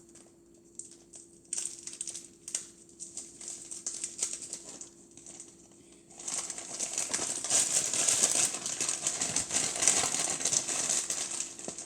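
Plastic packaging crinkling and rustling as it is handled: a few scattered crackles at first, then about six seconds in a dense, continuous crinkling that lasts almost to the end.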